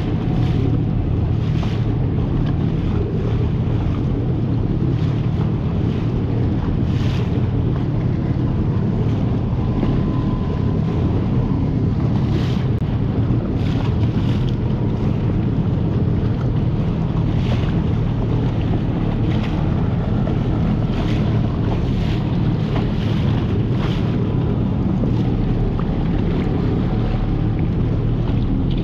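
Small boat running across choppy water: a steady low engine drone under wind buffeting the microphone, with water splashing every second or two.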